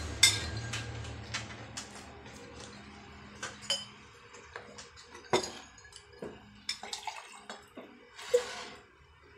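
Eating and table sounds: scattered short clicks and clinks of a drinking glass and dishes on a wooden table, mixed with mouth sounds of chewing fried spring rolls and sipping juice.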